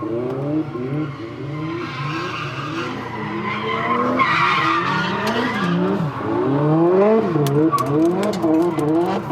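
Honda S2000's four-cylinder engine, its valve clearances freshly adjusted, being driven hard. The engine pitch repeatedly climbs and drops back as it revs and shifts, with a stretch of hiss about four seconds in.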